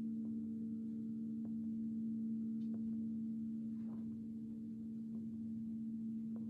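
Singing bowl ringing on as a steady low hum of a few held tones, slowly fading, with faint ticks about every second.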